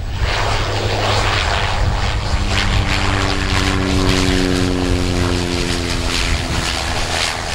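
Cessna 208 Caravan's single PT6A turboprop engine and propeller running as the plane flares just above the runway to land, a steady rumble with a hiss on top. Its tones fall slightly in pitch from about three seconds in as the plane passes.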